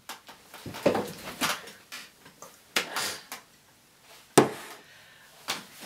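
A few scattered knocks and clatters, like objects being handled, with one sharp knock about two thirds of the way through.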